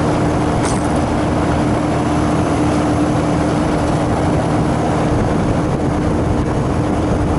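Walk-in freezer condensing unit running: the 1 hp refrigeration compressor and the condenser fan make a steady hum over an even rush of moving air. The fan motor, its shaft bearing freshly oiled, is running fast and moving a lot of air.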